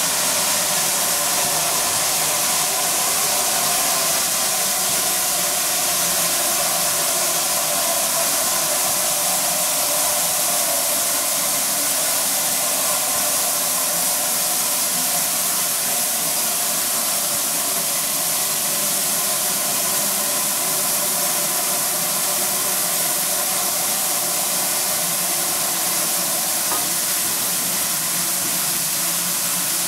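GWR 2884-class 2-8-0 steam locomotive 3803 releasing a steady, unbroken hiss of steam while moving slowly, with no exhaust beats.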